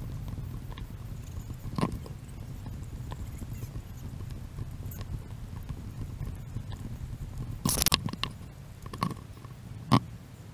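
A body-worn camera jostling on a hiker walking a paved trail: a steady low rumble of handling and footsteps, with a few sharp knocks, the loudest near the end.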